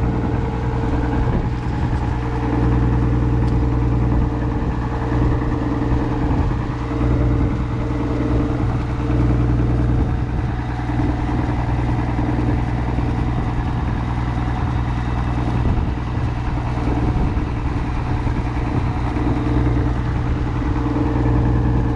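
A motorboat's engine running steadily at cruising speed, heard from aboard as a constant low hum.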